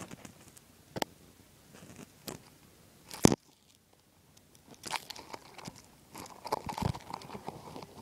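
Handling noise on a phone held down in long grass: a few sharp knocks about a second apart, the loudest a little past three seconds, then irregular rustling and crackling as grass blades brush against it.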